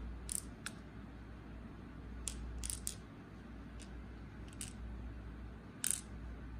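Small key pins dropping out of a brass Assa lock plug into a pin tray. About eight light, scattered metallic clicks, with the loudest near the end.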